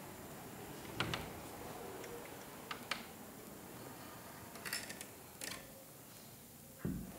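Soft clicks and knocks of a wooden door being pushed shut and its latch worked, the sharpest about a second in and a few more spread over the next few seconds, with a duller low thump near the end.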